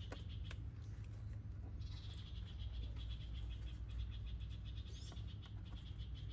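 High, pulsing animal calls, a trill that starts about two seconds in and keeps going, with a short rising chirp near the end, over a low steady hum.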